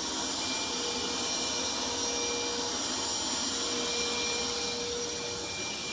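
Steady hiss of water spraying under pressure from a broken sink fitting that has not yet been shut off.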